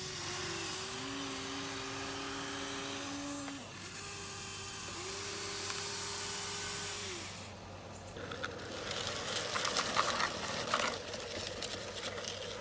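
Small electric motors of a Huina 1593 RC excavator whining, their pitch stepping up and down as different functions start and stop. From about eight seconds in comes a run of crackling, scraping clicks, the bucket working in sand.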